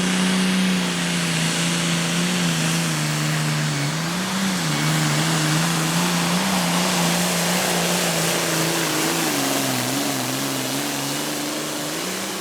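Pulling tractor's engine at full throttle as it drags the weight sled down the track. Its pitch sags and wavers under the load, and rises again near the end.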